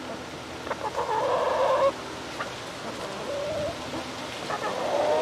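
Chickens clucking, with three drawn-out calls in a row.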